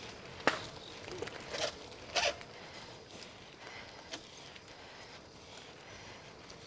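Bicycle riding along a path: steady tyre and wind noise, broken by a few sharp clacks and short rasps in the first half, the loudest about half a second and about two seconds in.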